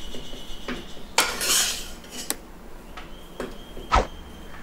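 A metal ladle scraping and clinking against a steel pot as cooked rice is mixed: a scrape about a second in, then a few sharp clinks, the loudest near the end.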